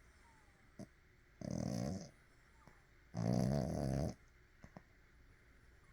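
Snoring in sleep: two snores about a second and a half apart, the second louder and longer, with a few faint clicks between them.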